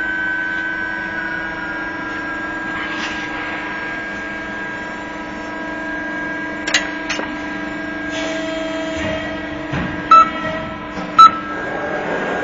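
Amada HFB 125-30 CNC press brake running idle with a steady hum. A couple of sharp metallic clicks come about seven seconds in, and two short, loud beeps near the end.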